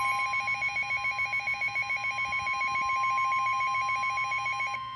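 Emergency Alert System alarm tone announcing a severe thunderstorm warning. A steady high tone is overlaid with a fast-pulsing, bell-like ringing tone. The pulsing layer stops near the end while the steady tone holds on.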